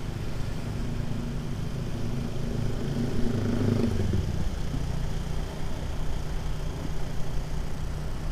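Motorcycle engine running while riding, heard from the bike itself, a steady low hum whose tone shifts about four seconds in.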